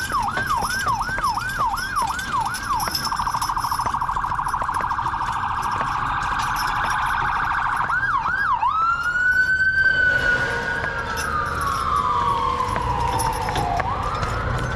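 Electronic emergency-vehicle siren cycling through its tones: a fast yelp for about three seconds, then a rapid warble, a brief yelp again, and a long wail that slowly falls and starts rising again near the end.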